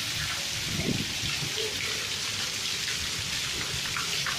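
Heavy hailstorm with rain: a dense, steady hiss of falling rain and hail striking surfaces, with scattered sharp ticks.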